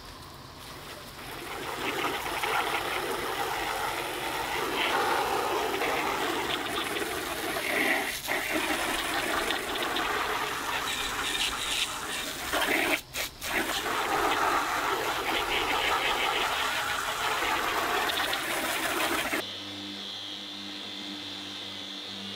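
Garden hose spray nozzle hissing as a jet of water hits a caravan's aluminium siding, cut off briefly twice. Near the end it switches abruptly to the steady hum of an electric random orbital sander running.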